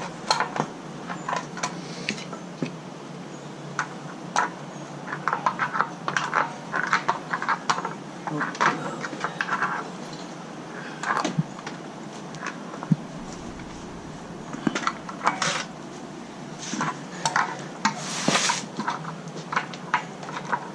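Irregular metallic clinks and knocks from tools and metal plumbing being handled, with no power tool running.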